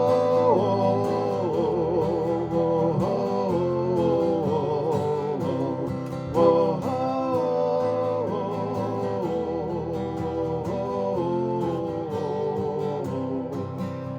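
Live acoustic folk song in an instrumental break: acoustic guitar strumming under a sustained, wavering melody line, with a fresh accent about six seconds in.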